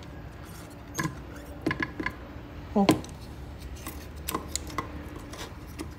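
Scattered light clicks and clacks of a precision screwdriver and the spot welder's plastic case and circuit board being handled during disassembly, over a low steady hum.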